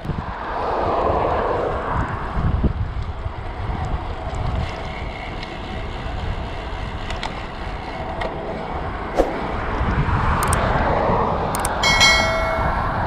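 Wind rushing over the microphone of a moving road bike in a crosswind, with a steady low rumble and road or traffic noise that swells twice. A short pitched tone sounds near the end.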